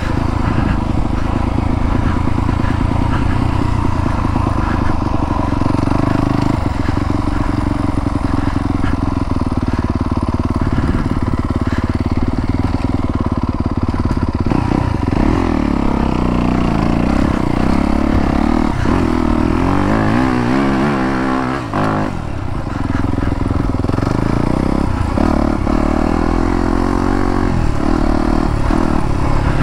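2021 Yamaha YZ250FX dirt bike's single-cylinder four-stroke engine running under a rider on a trail. It holds a fairly steady note for the first half, then revs up and down repeatedly, with a brief drop about three-quarters of the way through.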